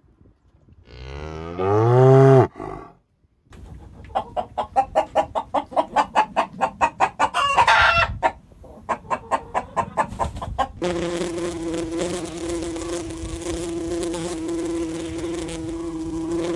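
A sequence of animal sounds: a short pitched call that rises and falls, then rapid repeated calls at about four a second, then a steady buzzing at a fixed pitch like a flying insect's wings.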